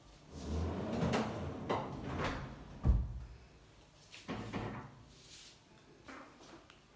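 A tall pull-out wardrobe unit sliding shut on its metal drawer runners, ending in a sharp thump about three seconds in. Softer swishes and knocks of a hinged wardrobe door being swung follow.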